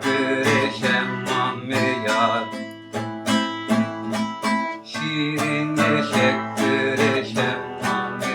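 Music: an acoustic plucked string instrument strummed in a steady, even rhythm.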